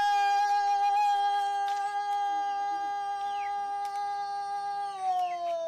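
A man chanting, holding one long steady note for about five seconds that sinks slowly in pitch near the end.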